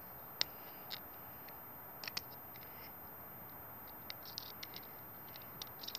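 Faint clicks and light scratches of a credit-card multitool being handled as its small parts are worked out with the fingers: a sharp click about half a second in, two more around two seconds, then scattered light ticks, over a steady faint hiss.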